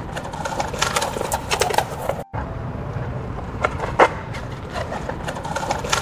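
AI-generated (MMAudio) skateboard sound: wheels rolling with a steady rumble and scattered sharp clacks. It breaks off for a moment a little over two seconds in, then starts again.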